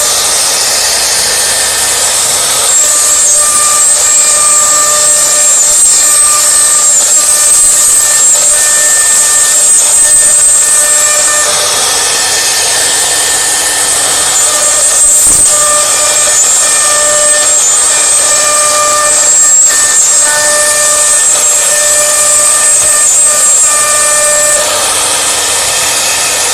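Wood CNC router at work: the spindle's steady high whine over a loud hiss of the bit cutting. The sound shifts in strength at a few points as the tool moves.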